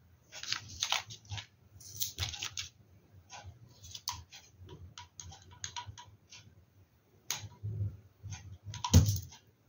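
Light, irregular clicking and rustling of small glass mosaic pieces and tape being handled on a plastic tray, with a louder cluster of clicks near the end.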